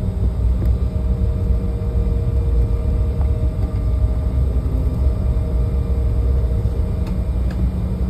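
Steady low rumble of a jet airliner heard inside the passenger cabin, with a faint steady engine hum above it.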